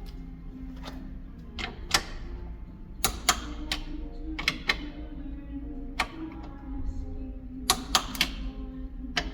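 About a dozen sharp clicks and clinks at irregular intervals, over a steady low hum and sustained background tones.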